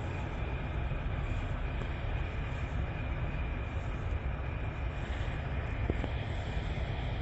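BharatBenz multi-axle tipper truck's diesel engine running at low revs with a steady low rumble as the truck creeps forward. A faint steady high whine sits above it.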